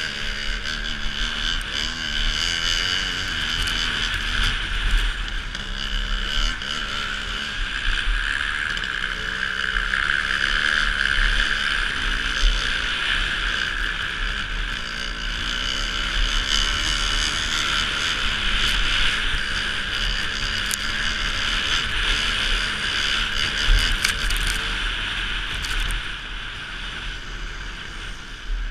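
A motocross bike's engine runs ahead at varying revs, rising and falling. It is mixed with steady wind rush and the hiss of skis on snow, heard from the skier being towed behind it on a rope.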